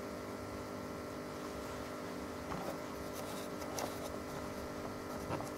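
Steady electrical hum from aquarium equipment. A few sharp light clicks come over it in the second half.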